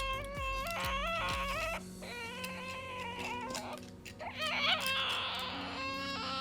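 Ducorps's cockatoo making drawn-out, wavering whining calls, several in a row with sliding pitch breaks, turning into a raspier, hissing call near the end, over background music.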